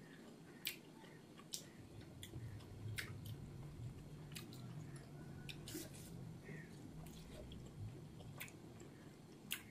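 Faint chewing of soft steamed pork momos, with scattered wet mouth clicks and smacks.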